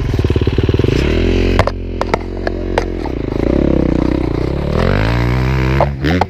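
Yamaha dirt bike engine idling, with two throttle blips whose pitch rises and falls in the second half. A few sharp clicks and knocks about two seconds in.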